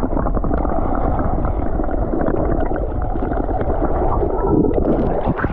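Loud, muffled rush and gurgle of sea water around a submerged camera microphone, dense and low with short crackles through it.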